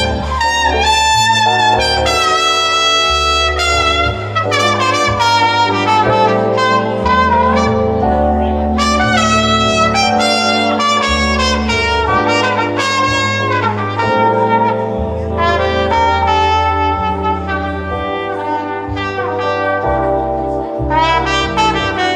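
A jazz band's instrumental break: a trumpet playing a melodic solo over a bass line and band accompaniment.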